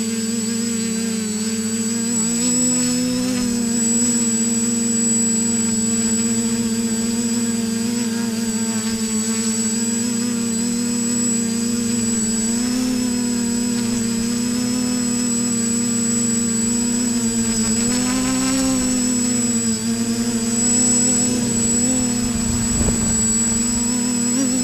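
Quadcopter's electric motors and propellers running, heard from its onboard camera: a steady buzzing hum whose pitch lifts briefly a few times as the throttle changes, with a thin high-pitched whine throughout.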